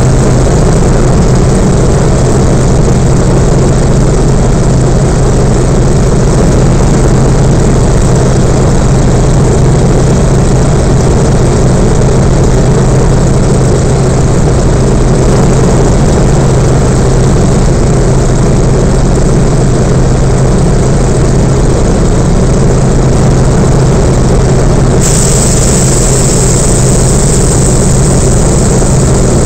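Yak-52's nine-cylinder Vedeneyev M-14P radial engine and propeller droning loud and steady, heard from inside the closed cockpit in flight. A high hiss brightens suddenly near the end.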